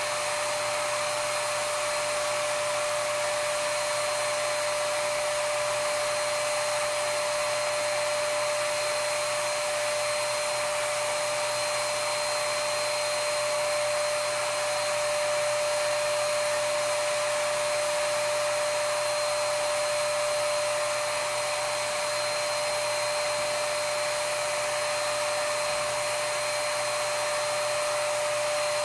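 Earlex 5500 HVLP spray station's turbine running steadily, blowing air and paint through a hand spray gun: an even rush of air with a constant whine over it.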